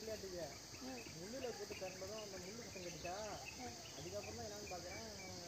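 Steady high-pitched chorus of crickets, with people's voices talking underneath.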